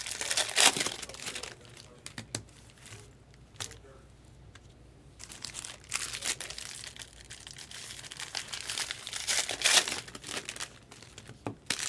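Wrapping on trading-card boxes and packs being torn open and crinkled by hand, in a burst at the start and another about nine to ten seconds in, with a quieter stretch between.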